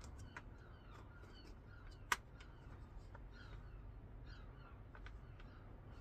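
Faint clicks and squeaks of the plastic tumble dryer door hinge as the hinge bar is pushed into place by hand, with one sharp click about two seconds in.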